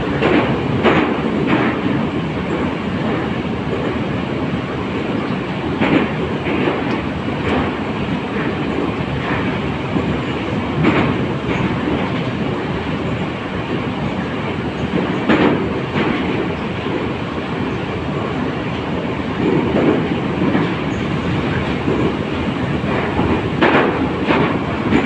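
Running noise inside an 81-722.1 metro car under way between stations: a loud steady rumble of the train, with short knocks of the wheels over rail joints every few seconds, sometimes two or three close together.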